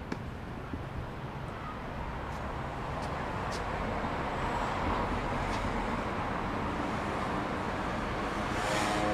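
City street traffic: a motor vehicle passing close by, its engine and tyre noise swelling over the first few seconds and then holding, with a few light clicks near the start.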